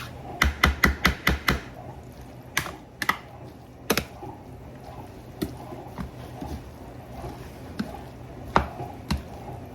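Serving utensils knocking and clicking against a mixing bowl while tossing pasta salad: a quick run of about six knocks in the first second and a half, then scattered single taps.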